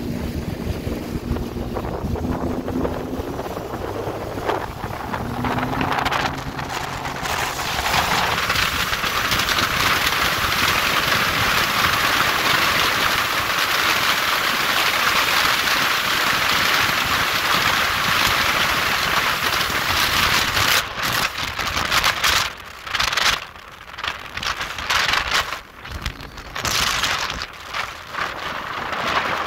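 Supercharged Rotax three-cylinder engine of a Sea-Doo RXT-X RS jet ski accelerating hard, its pitch climbing over the first several seconds. From about eight seconds in, a loud steady rush of wind on the microphone at around 73 mph covers it. In the last several seconds the rush breaks up and cuts in and out.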